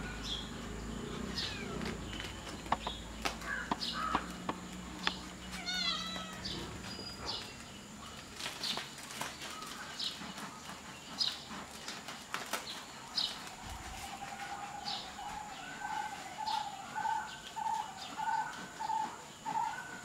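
Kittens playing, with light scrapes and knocks of paws on a plastic feed sack and a concrete floor. Over this come short, high chirping animal calls about once a second, and a quick run of lower repeated calls in the last few seconds.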